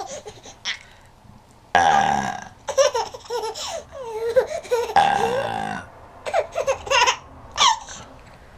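A person burps loudly twice, about two and about five seconds in, and a baby laughs in short bursts after each burp.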